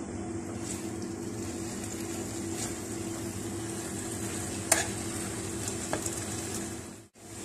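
Onion-tomato masala and fried kingfish slices sizzling in a non-stick frying pan, with a spatula stirring and tapping against the pan twice. The sound cuts out briefly near the end.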